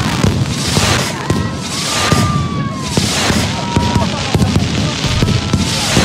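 Aerial fireworks going off in quick succession: repeated bangs with surges of crackling about once a second.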